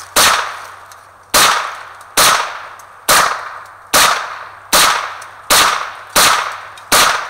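Rifle firing nine shots in steady succession, just under a second apart, each crack trailing off in an echo.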